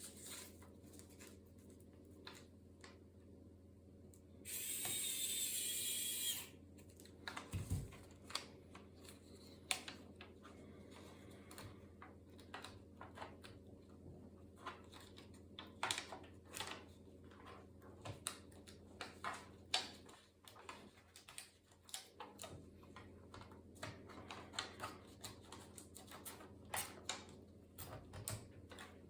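Small clicks and taps of laptop parts being worked on by hand, a dense irregular run of them after a two-second burst of hissing about four and a half seconds in.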